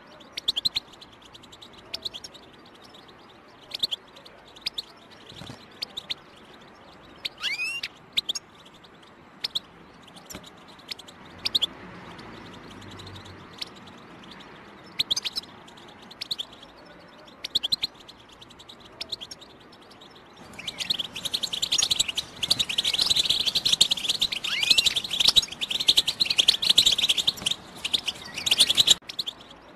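European goldfinch calling. Scattered short, high chirps and twitters for the first two-thirds, then a dense, fast run of twittering song that cuts off abruptly just before the end.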